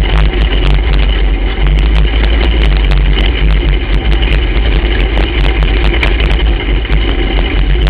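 Racing kart's engine running loud and steady right beside the onboard camera.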